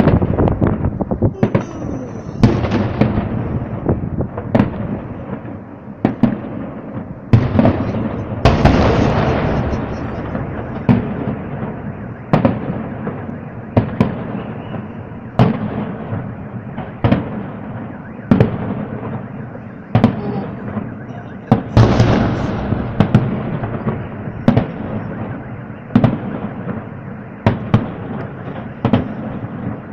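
Aerial fireworks display: a steady run of shell bursts, a sharp bang every second or so, each trailing off in a rolling echo. Two denser, louder flurries of crackling bursts come about a third of the way in and again past two-thirds.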